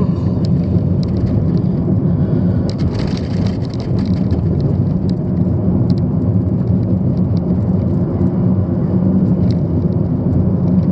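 Steady low rumble of a car driving, heard from inside the cabin: road and engine noise, with scattered light ticks over it.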